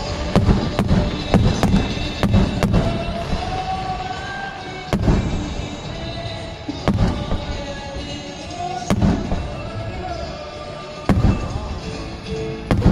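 Aerial firework shells bursting: a quick run of bangs in the first few seconds, then single booms about every two seconds. Music plays underneath.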